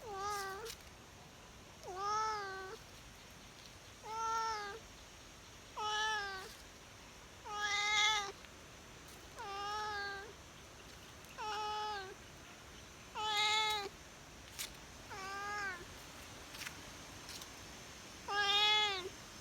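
Domestic cat meowing over and over: about ten separate meows, each under a second long, at roughly two-second intervals.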